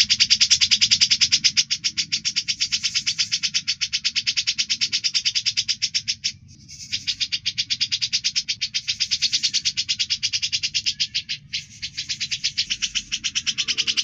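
Songbird's sharp besetan: a rapid, rasping, buzzing trill of fast repeated notes, held for several seconds at a time, used as a masteran recording to teach cage birds. It breaks off briefly about six seconds in and again near the end.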